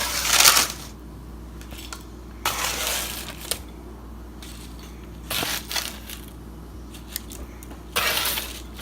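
Dishes being handled in a kitchen while crispy breaded pickles are plated: four short scraping, crunching bursts about two and a half seconds apart.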